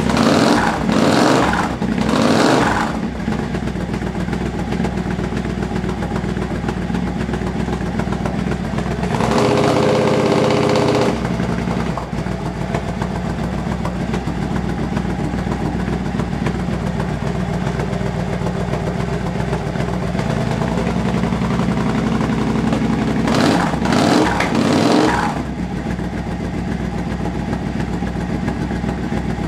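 Triumph Scrambler parallel-twin motorcycle idling through a straight-through race-can silencer freshly repacked with new wadding. The throttle is blipped twice near the start, held open for about two seconds around ten seconds in, and blipped twice more near the end. The hollow, echoey note is gone, though the exhaust is just as loud.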